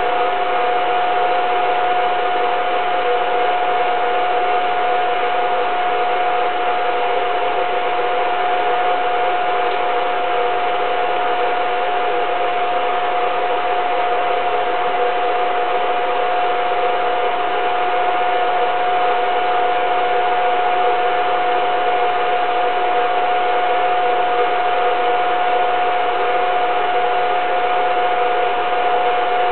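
Home-movie film projector running: a steady motor whir with a constant whine over a hiss, unchanging throughout.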